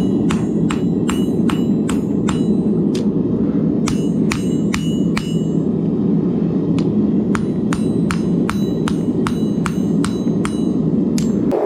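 Hammer blows on hot 1084 high-carbon steel on an anvil while rough-forging a knife blade: quick ringing strikes, about three or four a second, with a short pause midway. Under them is the steady rushing roar of a gas forge burner.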